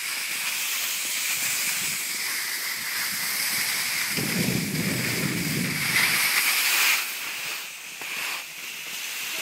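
Skis hissing as they slide over packed snow, with a low rumble about four to six seconds in; the hiss is loudest just before seven seconds and then eases off.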